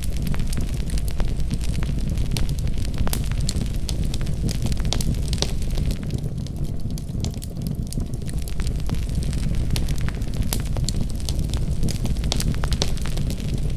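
Wood fire crackling: many sharp, irregular pops and snaps over a steady low rumble of the burning fire.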